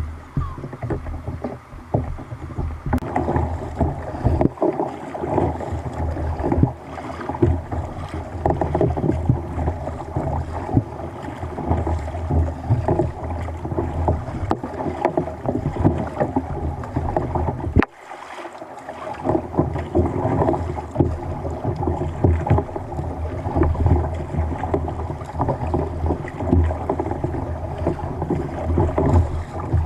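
Water sloshing and splashing against a kayak's hull, continuous and uneven, briefly dropping away about two-thirds of the way through.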